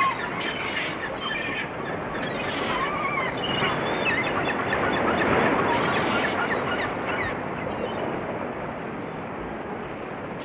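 Birds calling: many short, chirping and squawking calls that rise and fall in pitch, over a steady rushing noise. The calls thin out after about seven seconds, leaving mostly the rushing noise.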